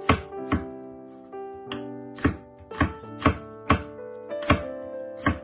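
Chef's knife slicing carrot into strips on a wooden cutting board: sharp knocks of the blade on the board about two a second, with a pause after the first two cuts, over background music.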